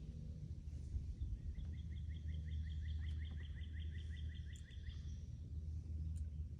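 A bird's trill of quick, evenly repeated chirps, about five or six a second, starting about a second and a half in and lasting some three and a half seconds, over a low steady rumble.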